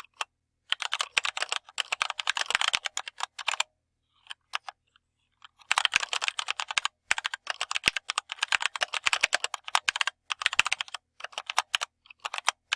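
Fast typing on a Keychron K2 mechanical keyboard: dense runs of clicky keystrokes. About four seconds in, the typing pauses for a couple of seconds, with only a few scattered key presses, then resumes.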